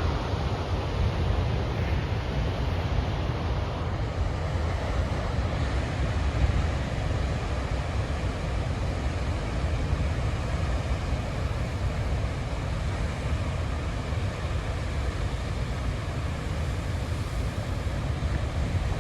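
Storm surf: a steady wash of breaking ocean waves, with a heavy low rumble of wind on the microphone.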